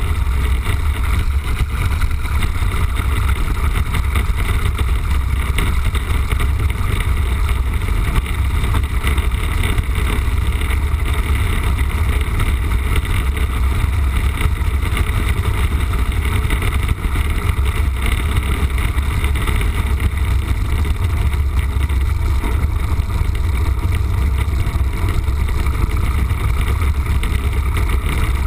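Piper J-3 Cub's engine and propeller running steadily, heard from inside the cockpit as the plane lands and rolls out on a grass strip.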